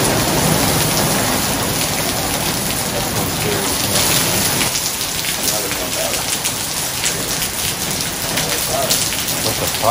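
Heavy, wind-driven hurricane rain pouring steadily and splashing on the ground.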